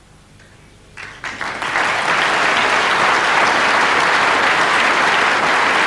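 Audience applause breaks out about a second in, starting with a few scattered claps and then swelling quickly into full, steady clapping from a large crowd.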